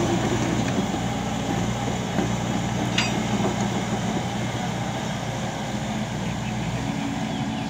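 Volvo crawler excavator's diesel engine running steadily as the machine tracks and turns on sandy ground, with a single sharp click about three seconds in.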